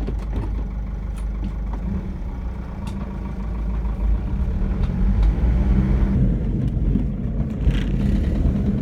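Steady low rumble of a car's engine and road noise, growing louder from about four seconds in.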